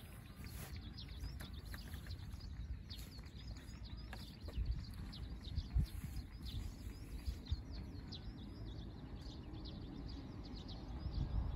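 Small birds chirping repeatedly, many short calls sliding downward in pitch, over a steady low outdoor rumble.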